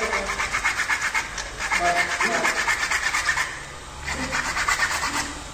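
Plastic cable duct being cut by hand, a fast run of rasping sawing strokes in three bouts with short pauses between them.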